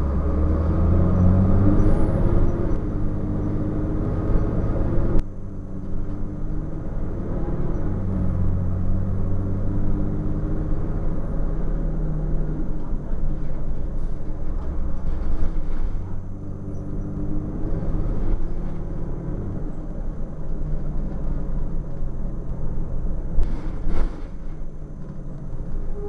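Transit bus's Cummins ISC six-cylinder diesel engine heard inside the cabin while the bus drives. The engine tone rises several times as it pulls through the gears of the Allison automatic transmission. A hiss cuts off suddenly about five seconds in, and a couple of sharp knocks come near the end.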